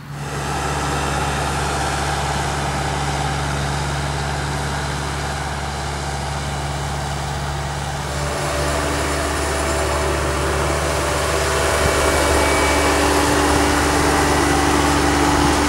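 New Holland CX 8070 combine harvester running steadily while harvesting wheat. About eight seconds in, the sound cuts to the diesel engine of a Rimmeco Airone 2000 self-propelled sprayer running as it drives through the crop, growing louder toward the end.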